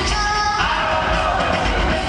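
Live pop concert music with a sung vocal over a heavy, steady beat, loud and dense as picked up from the audience in an arena.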